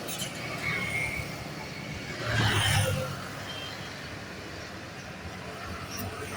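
Large bus engine running at low speed, with a louder rush of noise about two and a half seconds in.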